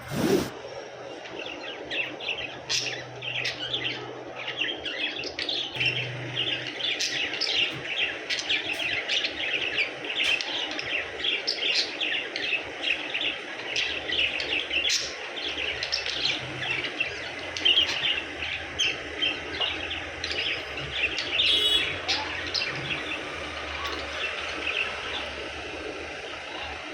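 Budgerigars chirping and chattering, a dense run of quick, high, short chirps that goes on without a break.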